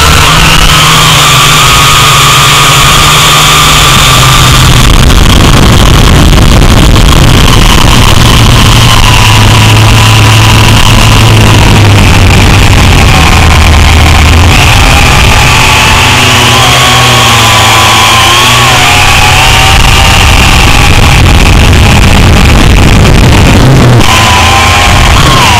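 Electric motor and propeller whine of a drone in flight, picked up by its onboard camera very loud over a rushing noise. The whine's pitch wavers up and down in the second half.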